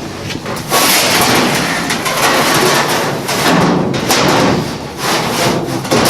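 18-gauge sheet-steel floor panel being slid into place on the car's floor structure: steel scraping and rubbing on steel, with a few knocks. The scraping starts about a second in.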